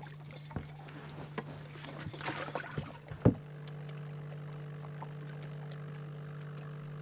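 Water splashing and trickling with small clicks as a fish is handled in an aluminum fishing boat. A single sharp knock comes about three seconds in, followed by a steady low hum.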